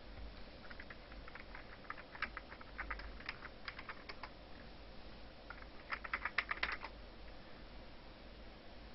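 Faint typing on a computer keyboard: two runs of quick, irregular key clicks, the first lasting a few seconds, the second briefer, about six seconds in.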